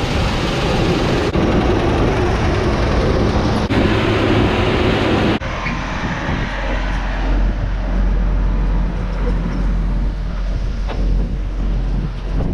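Vehicle engine running steadily under heavy noise, the sound changing abruptly a few times in the first half as separate clips cut together.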